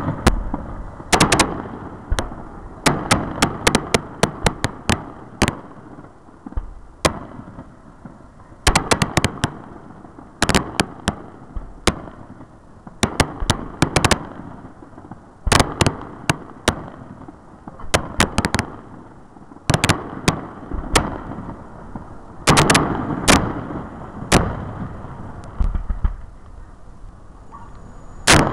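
Aerial firework shells bursting: sharp bangs in quick, irregular clusters, several a second at times, with short pauses between clusters.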